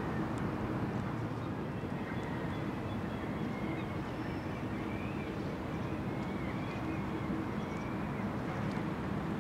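Steady low rumble and hum of harbour ambience, with a few faint short bird chirps over it.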